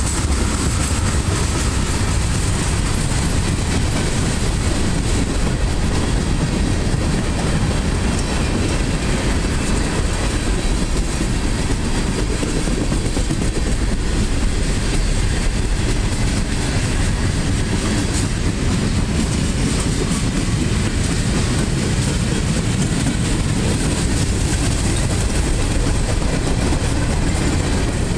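Freight cars of a passing train, tank cars and covered hoppers, rolling by steadily: a continuous rumble and clatter of steel wheels on the rails, with no change in pace.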